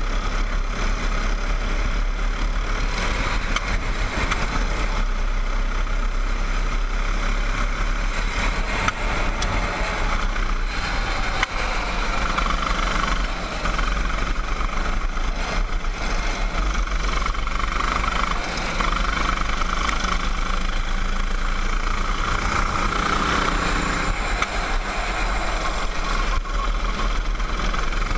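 Go-kart engine running at speed, heard from onboard the kart, with a steady low rumble underneath.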